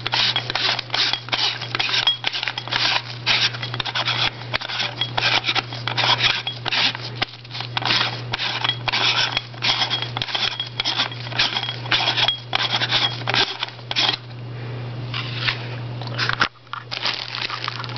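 Clear plastic bag being handled, crinkling in quick irregular crackles that ease off for a couple of seconds near the end, over a steady low hum.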